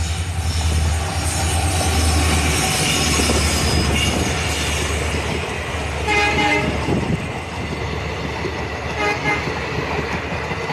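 Diesel-hauled passenger train passing close at speed: a deep locomotive engine rumble with rushing wheel and coach noise. The train horn sounds about six seconds in and again briefly about nine seconds in.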